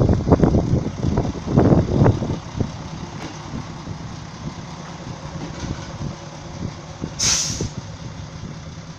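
České dráhy class 810 railbus pulling away, its diesel engine running steadily, with the wheels clattering over the track in the first couple of seconds. About seven seconds in comes a short hiss of compressed air.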